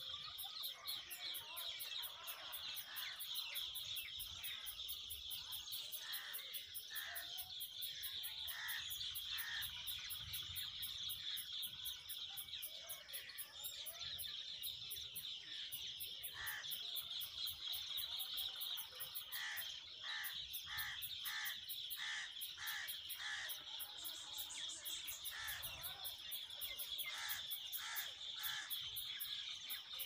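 Short bird chirps in quick runs of five or six, about three a second, over a steady high trilling buzz like insects. The chirps fit common myna nestlings begging at the nest.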